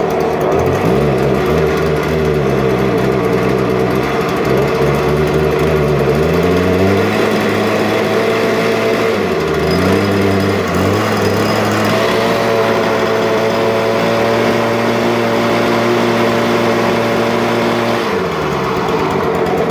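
Stihl BG86 handheld leaf blower's two-stroke engine running, revved up from idle and let back down three times, the last time held at high revs for about six seconds before dropping back to idle near the end.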